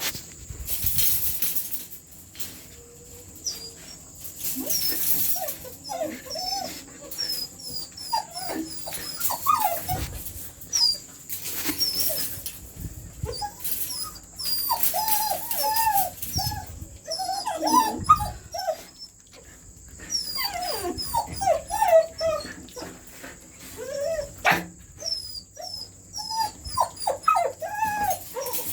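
Several dogs whining and yelping many times over in short rising-and-falling cries, the excited sound of dogs expecting their food, with a few short noisy rattles between.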